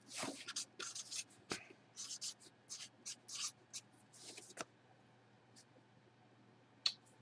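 Short scratchy rubbing and rustling noises, a quick run of them over the first four and a half seconds, then only a faint steady hum.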